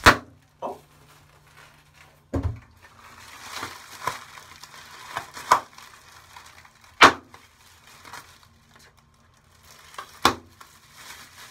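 Clear plastic packaging crinkling as it is handled, with about five sharp, loud crinkles spread through the handling.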